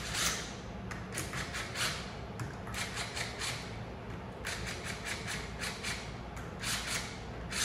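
Cordless power driver running the air-chamber bolts down into a plastic AODD pump's center block, in about five short bursts of rapid clattering with brief pauses between.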